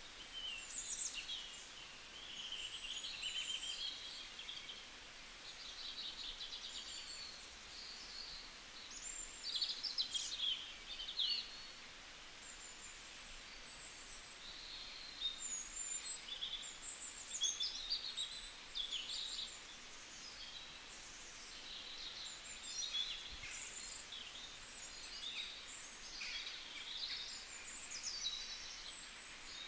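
Several small birds chirping and twittering in quick short calls throughout, over a faint steady outdoor hiss.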